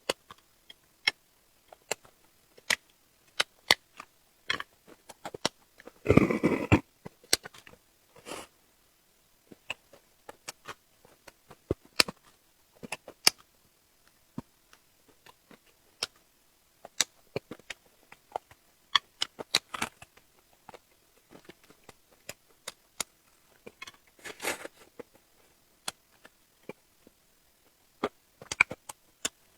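Close-miked eating: scattered wet clicks and crunches of chewing and biting, with a longer noisy smacking or rustling burst about six seconds in and again around 24 seconds.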